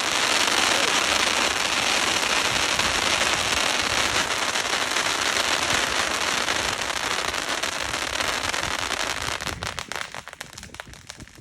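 Cone fountain firework spraying sparks: a steady rushing hiss that breaks up into scattered crackles and dies away about ten seconds in.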